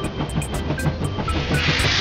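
Cartoon steam-engine puff sound effect: a hiss of steam that swells up about a second and a half in, over light background music with a steady beat.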